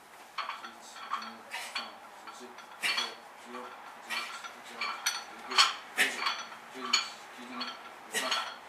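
Barbell with iron weight plates clinking and clanking during rapid, repeated bench rows, about two metal knocks a second with a short ring after each.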